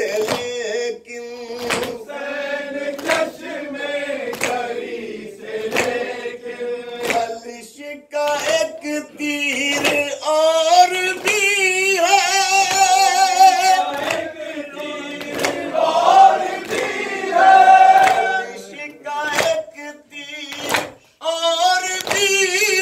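A male reciter singing a noha, a Shia mourning lament, over a microphone, with a group of men singing the refrain along with him. Sharp rhythmic strikes of chest-beating (matam) keep time with the singing, about once a second.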